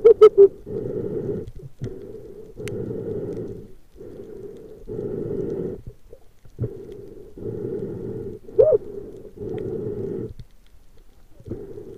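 Muffled rhythmic whooshing through an underwater camera, from a spearfisher moving or breathing in the water, in surges about a second long with short gaps between. A brief squeaky gurgle sounds at the start and again about nine seconds in.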